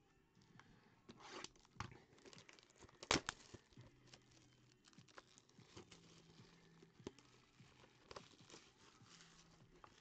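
Clear plastic shrink-wrap being torn off a trading card box and crinkled in the hands: crackling and tearing with sharp snaps, the loudest about three seconds in.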